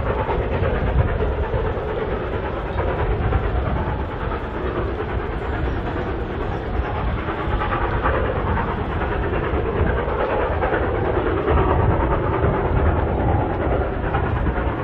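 A distant steam-hauled passenger train running along the line, heard steadily through the rumble of strong, gusty wind on the microphone.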